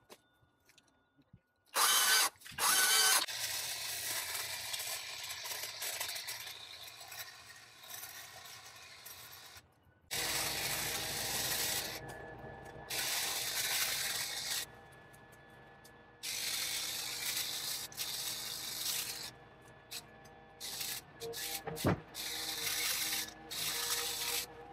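Cordless hedge trimmer, powered from a backpack battery, cutting hedge branches in repeated runs of a few seconds: its motor and blades start and stop about six times, with short quieter pauses between.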